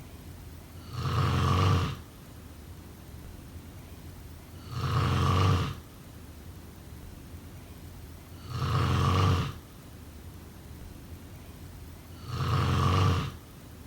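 Snoring, four loud snores in an even rhythm, about one every four seconds, each lasting about a second.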